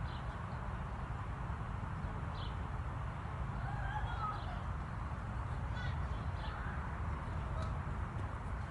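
Steady low rumble, like wind on the microphone, with faint animal calls now and then.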